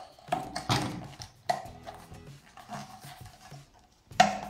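A few separate metallic clicks and knocks, each ringing briefly, as the removable inner lid plate of an electric pressure cooker is handled and fitted back against the stainless-steel lid.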